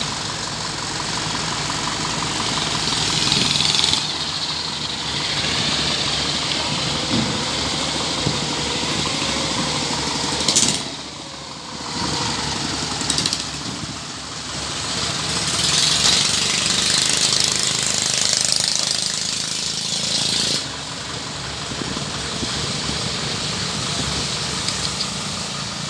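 Kubota crawler combine harvester's diesel engine running as the machine moves, with a brief drop in the sound about eleven seconds in.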